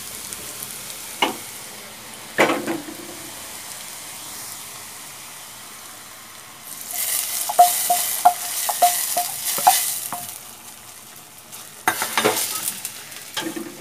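Small onions and curry leaves frying in coconut oil in a small pan, a steady sizzle. About seven seconds in, the hot tempering is poured into the gravy in a clay pot: a loud sizzle with a quick run of clinks as the pan is scraped out, then a few knocks and more sizzle as it is stirred in.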